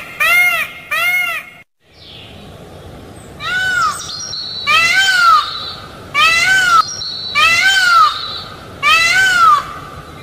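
Peacock calling: three short calls about two a second, then, after an abrupt cut, five longer loud calls about every second and a half, each rising and falling in pitch.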